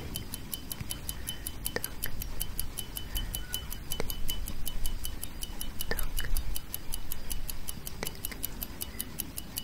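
Clock tick-tock sound effect: fast, evenly spaced light ticks, with a stronger click about every two seconds.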